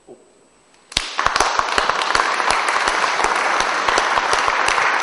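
An audience breaks into applause about a second in, many hands clapping steadily.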